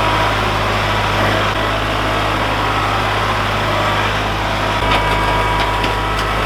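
An engine running steadily, likely the machine used to move the firewood crates into the kiln. A few light clanks come near the end.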